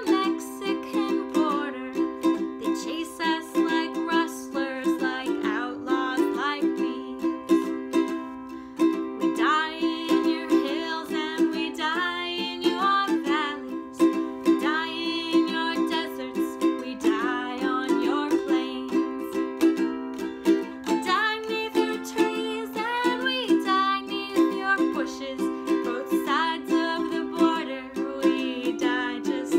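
Ukulele strummed steadily, playing the song's chords through an instrumental passage.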